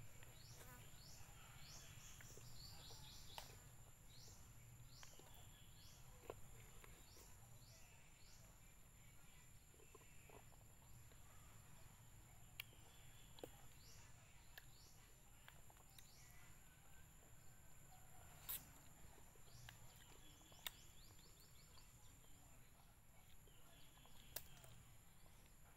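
Quiet rural ambience: a steady high-pitched insect drone and a run of short falling chirps, repeated about one or two a second. A few faint clicks from chewing are scattered through.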